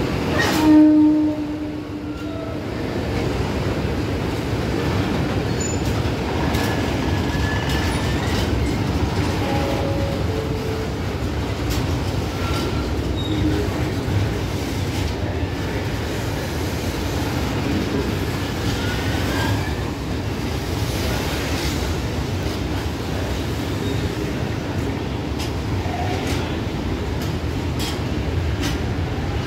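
Freight train of hopper wagons rolling steadily past, the wheels rumbling and clicking over the rail joints, with short, scattered wheel squeals. A brief loud tone about a second in is the loudest moment.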